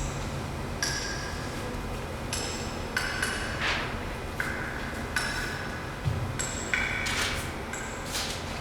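Ancient glacier ice, about 100,000 years old, popping as trapped air escapes while it melts. It gives about a dozen irregular sharp pings, each with a short glassy ring, at uneven gaps. A dull thump comes about six seconds in.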